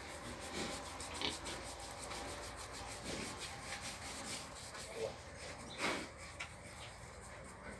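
Faint rubbing and scratching of a hand stroking a pig's bristly hide, with one slightly louder scrape about six seconds in.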